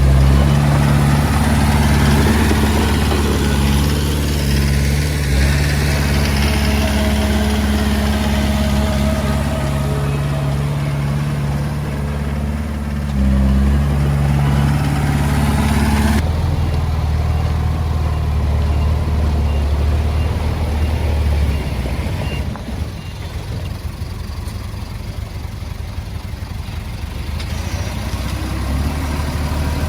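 Diesel engine of a Komatsu D20A bulldozer running steadily, with a noisy clatter over it in the first half. About halfway through the sound changes abruptly and the upper noise falls away; the engine drops in level a few seconds later and builds again near the end.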